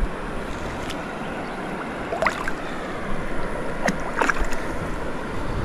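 Steady rush of river water flowing past, with some wind rumbling on the microphone.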